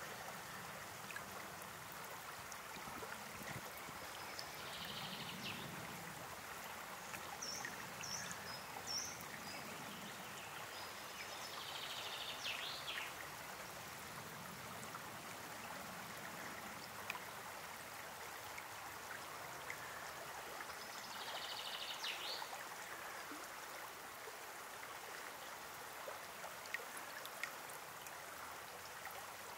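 River water flowing, a steady faint rush, with a few short bird calls scattered through it.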